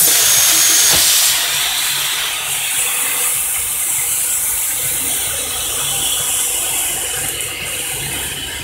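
Compressed air hissing from the pneumatic fitting of an industrial circular-hemming sewing machine, with a thin whistle and a click about a second in. After that the hiss drops and steady mechanical workshop noise continues, fading slightly.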